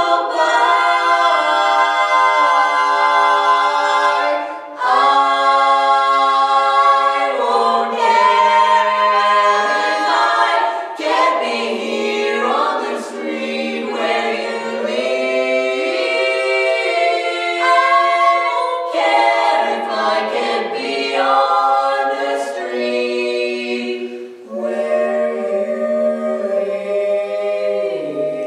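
Mixed a cappella vocal quartet, three women and a man, singing sustained chords with no instruments. The singing dips briefly about four and a half seconds in and again about twenty-four seconds in, and ends on a long held chord.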